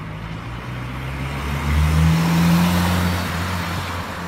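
A car driving past close by on the road. Its engine and tyre noise swells to a peak about halfway through, then fades.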